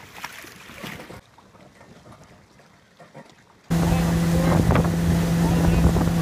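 Quiet at first, then nearly four seconds in a boat's outboard jet motor comes in abruptly, running steadily at speed under way: a loud, even drone with one steady pitch, with wind on the microphone.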